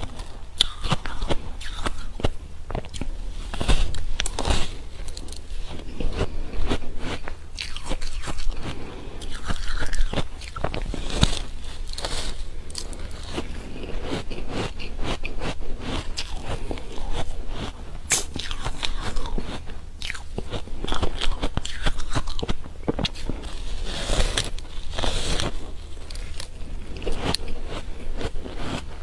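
Repeated crunching bites and chewing of a cake made of ice: hard, crackly crunches as teeth break through the frozen layer, with louder clusters of bites every few seconds.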